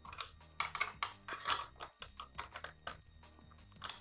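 Hand tools, a screwdriver and a 10 mm spanner, clicking and tapping against small metal bolts and nuts while they are tightened: irregular light clicks, a few louder ones near the middle.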